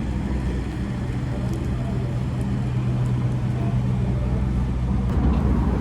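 Street traffic noise with a steady low engine hum, as of a vehicle idling close by; the hum stops about five seconds in.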